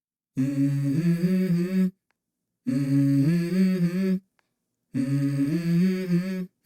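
Three short hummed vocal phrases, each about a second and a half long and separated by full silences, opening a song in the background music.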